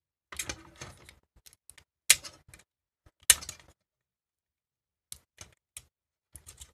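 Snap-off utility knife slitting the plastic shrink-wrap sleeve of a cylindrical lithium-ion cell: a run of scratchy clicks and short scrapes, with two sharp louder clicks about two and three seconds in, then a pause and a few lighter clicks.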